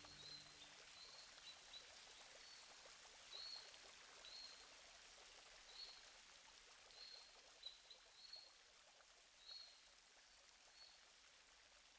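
Faint outdoor ambience: a soft steady hiss with a bird's short high chirp repeated about once a second.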